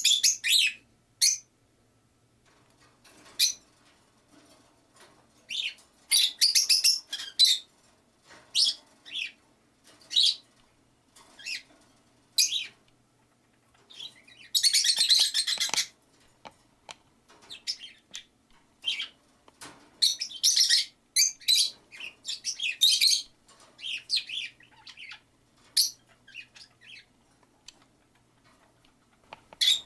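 Small caged pet parrots (peach-faced lovebirds and budgies) chirping in short, high-pitched bursts with quiet gaps between them. There is a longer, denser flurry of sound about halfway through.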